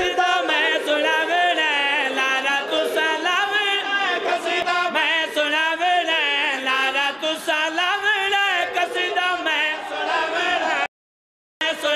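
Male voice chanting a Punjabi devotional qasida in praise of Abbas, sung unaccompanied with long wavering held notes. The singing cuts off abruptly to silence for under a second near the end, then resumes.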